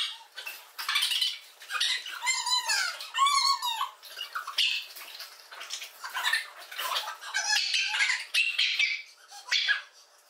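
Small dogs yelping and squealing in many short, high-pitched bursts of wavering pitch while they tussle in play.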